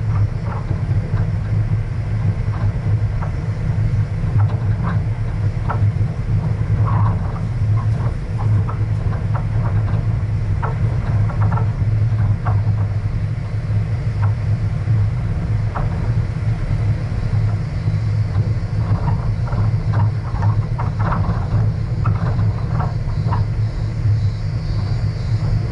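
Vehicle driving along a gravel dirt road: a steady low rumble of engine and tyres, with scattered small clicks and rattles throughout.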